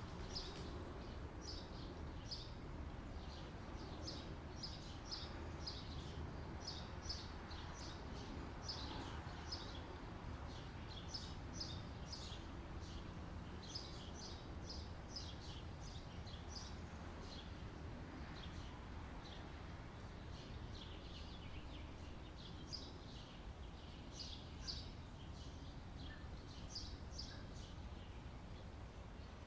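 Outdoor summer ambience: small birds chirping, short high chirps coming in quick runs, over a steady low background rumble.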